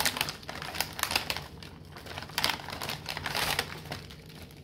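Plastic zipper sandwich bag and disposable plastic glove crinkling while Triscuit crackers are handled into the bag, with quick, irregular clicks of the crackers tapping together.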